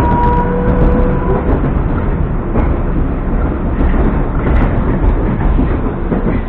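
Interior sound of a Moscow Metro train running on the elevated Butovo line: a steady rumble of wheels on rail, with a motor whine that stops about a second and a half in and a few faint clicks.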